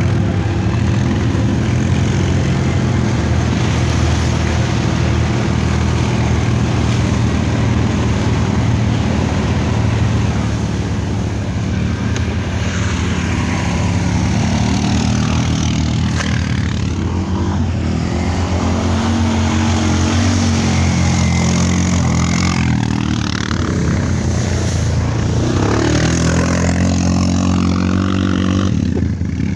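Quad bike (ATV) engines running off-road, their pitch rising and falling as the throttle is worked.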